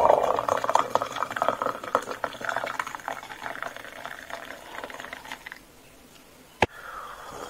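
Hot water poured from an electric kettle into a glass for about five and a half seconds, then stopping. A single sharp click follows about a second later.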